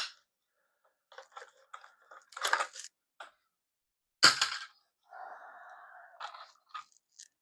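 Hard objects being handled: scattered clicks and crackles, one sharp knock about four seconds in, then a brief scraping sound and a few more clicks.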